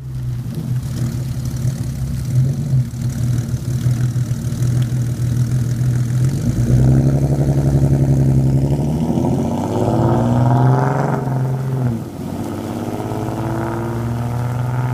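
2014 Ford Mustang 3.7 L V6 exhaust, with long-tube headers, an H-pipe, a muffler delete and a ghost cam tune: a steady low drone that turns into acceleration about seven seconds in, with the pitch rising. The pitch dips about twelve seconds in, then climbs again as the car pulls away.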